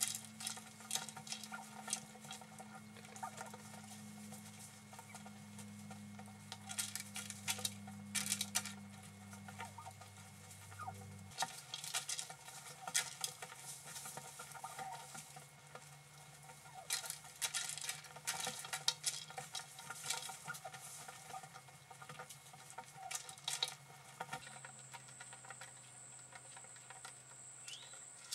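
Osceola wild turkeys pecking and scratching at feed on a hard feeder pad: clusters of small sharp clicks and scrabbling over a faint steady hum. Near the end a steady high whine comes in.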